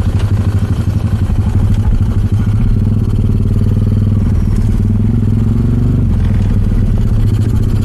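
Yamaha 125ZR ('Ysuku') two-stroke motorcycle with an X1R exhaust, running along at a fairly steady throttle. It has a low, fast pulsing note that its owner likens to a helicopter, rising slightly partway through and easing off near the end.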